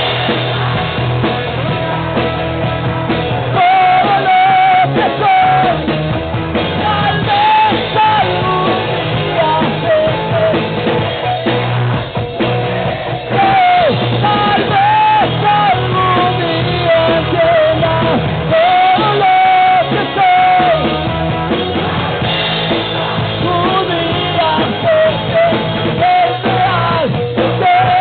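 Rock band playing live, with drums under a wavering melodic lead line that sits in the upper-middle range.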